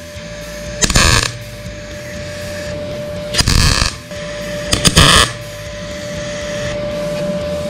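MIG welder tack-welding steel nuts together: three short bursts of arc crackle, each about half a second, coming about a second, three and a half seconds and five seconds in. A steady hum runs between them.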